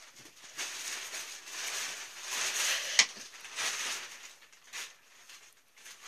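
Rustling handling noise on the phone's microphone in several bursts, with one sharp click about three seconds in.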